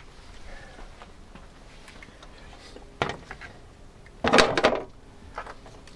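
Metal clatter from parts or tools being handled: a single sharp knock about three seconds in, then a longer rattling clatter a little after four seconds and a smaller knock near the end.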